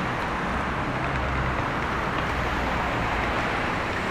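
City street ambience: a steady wash of road traffic noise with a low engine rumble.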